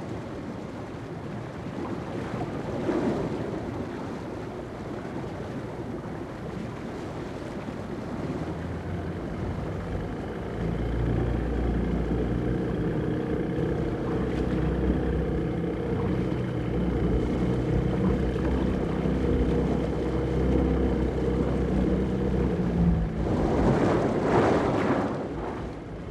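Motorboat engine running at sea under way, with wind and water noise. A steady low engine hum grows stronger about ten seconds in.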